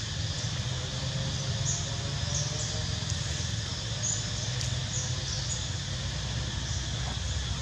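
Steady outdoor background with a constant low rumble, dotted with faint, short high-pitched squeaks.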